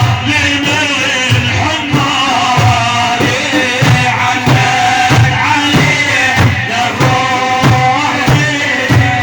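Music from an Iraqi religious praise song (madih): a gliding melody over a steady drum beat.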